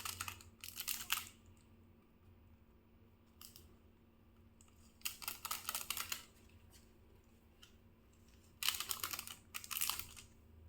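Small plastic seasoning sachets of dried oregano being torn open and shaken out: a rapid crinkling crackle in three short bursts, one near the start, one about halfway and one near the end.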